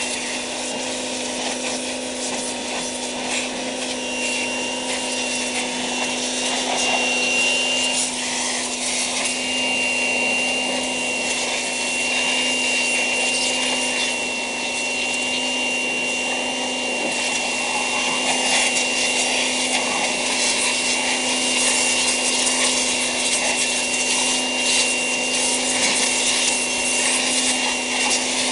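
High-pressure washer running steadily, a constant motor hum under the hiss of the water jet spraying the lawn mower engine.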